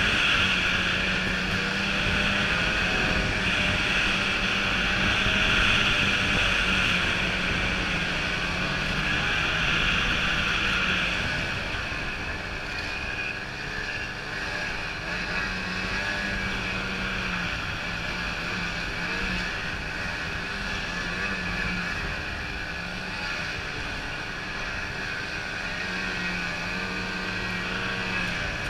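Ski-Doo 800 snowmobile's two-stroke engine running under way, louder for about the first eleven seconds and then easing off a little.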